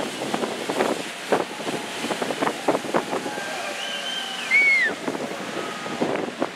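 Wind buffeting the microphone in irregular gusts over the wash of churned sea water. About four and a half seconds in comes a short, high whistle-like tone that rises and then falls.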